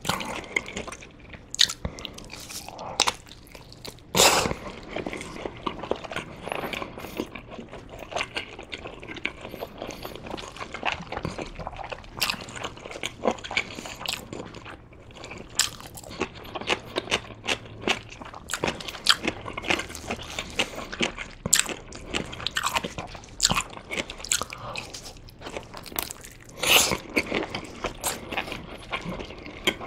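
Close-miked eating sounds: wet chewing and biting of sundae (Korean blood sausage), with crunchy bites of pickled radish. Two of the bites are louder, one about 4 seconds in and one near the end.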